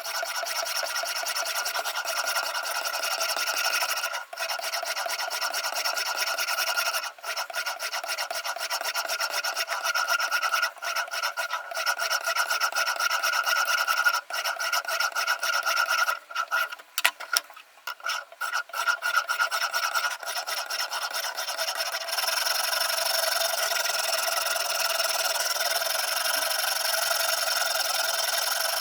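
Diamond stone of a Ruixin Pro RX-008 guided sharpener stroked along the steel edge of a VG10 Damascus chef's knife: a continuous scraping rasp. It breaks off briefly a few times, turns choppy past the middle, and is louder and brighter in the last quarter.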